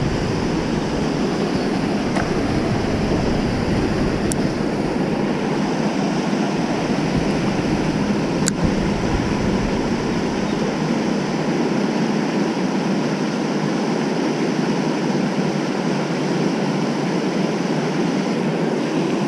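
Steady rush of water pouring over a low dam and churning in the pool below.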